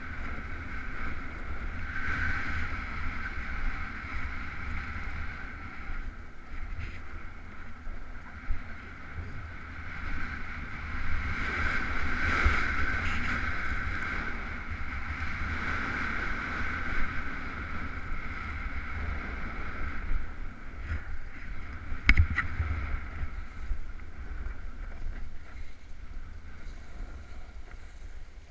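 Wind rushing over an action camera's microphone during a fast downhill run on snow, with the steady scrape of edges on packed snow. A sharp knock about 22 seconds in.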